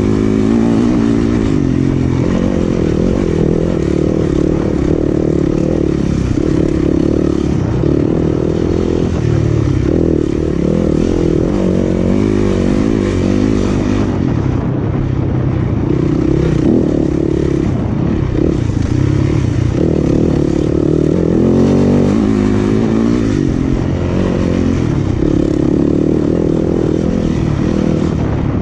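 Yamaha 250 cc single-cylinder dirt bike engine under race load, revving up and dropping back over and over as the throttle is worked.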